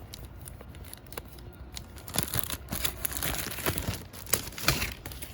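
Packaging being handled while a welder box is unpacked: irregular crinkling and rustling with small knocks, busier from about two seconds in.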